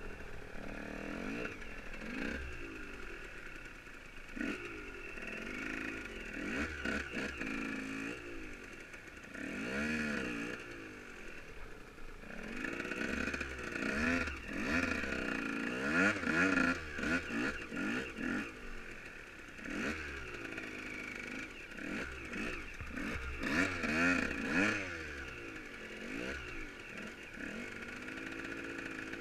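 Off-road motorcycle engines revving up and down repeatedly in rising and falling surges, louder about halfway through and again toward the end.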